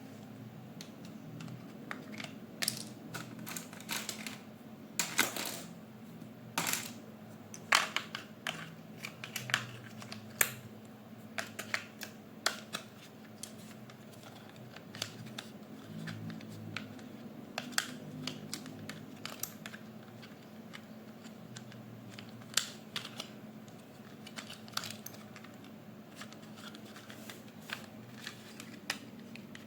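Irregular clicks and taps of plastic toy parts and packaging being handled, denser and louder in the first half, over a faint steady hum.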